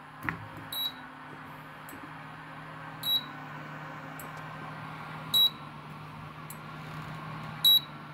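Induction cooker's power board ticking while it shows error E0: four sharp ticks about 2.3 seconds apart over a steady low hum, with no induction heating. The repairer traced this fault to the control processor.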